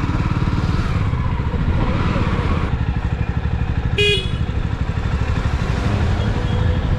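Motorcycle engine running steadily while riding, with a short horn beep about four seconds in.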